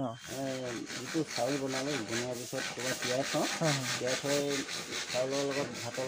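A steady scratchy rubbing noise, like something brushing against the microphone, over men's low voices.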